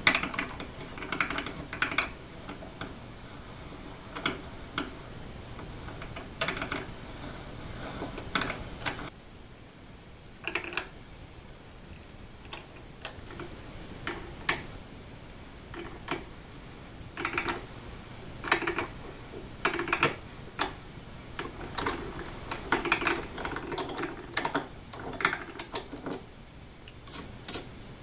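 Ratcheting T-handle tap wrench clicking in short irregular runs as an 8 mm tap is turned into an aluminium plate to cut threads. There is a brief lull about a third of the way in.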